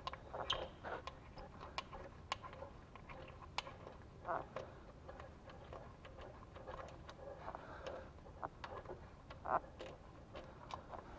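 Light, irregular metallic clicks and taps of hand tools on the crankshaft pulley bolt as it is unscrewed, with a few brief louder knocks.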